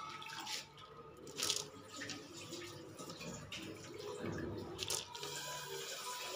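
Water dripping and splashing in a stainless steel basin, with two brief splashes about a second and a half in and again near five seconds.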